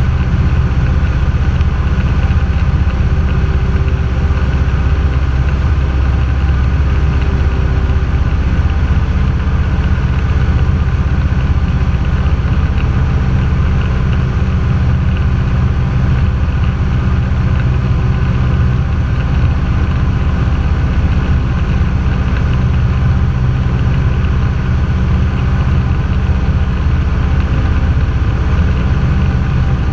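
Cessna 172's single piston engine and propeller running at a steady power setting in flight, a constant low drone heard from inside the cabin.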